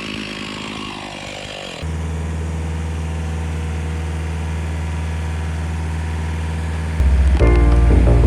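Rayco RG50 stump grinder's engine idling steadily. Electronic music starts loudly about seven seconds in.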